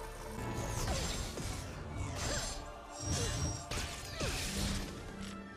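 Fight-scene sound effects from a TV episode: a series of sudden clashing hits and whooshing swings, about a second apart, over score music.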